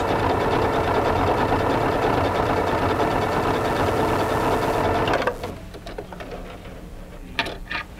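Singer 7466 computerized sewing machine stitching a seam in its reinforcing (triple straight) stitch, its motor and needle running steadily, then stopping about five seconds in.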